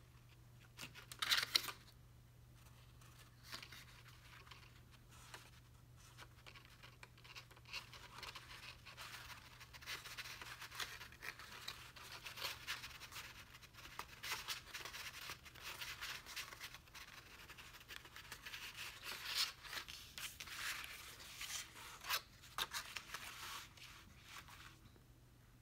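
Card stock being handled: a few sharp clicks about a second in, then a long stretch of scratchy rustling and rubbing as the folded card stock sides are pressed and fitted together.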